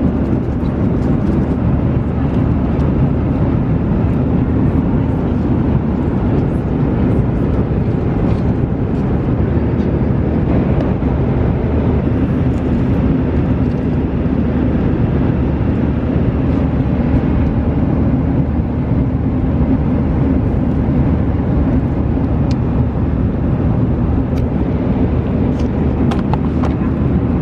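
Airliner cabin noise in flight: the steady low rumble of the engines and the airflow, unchanging throughout, with a few faint clicks near the end.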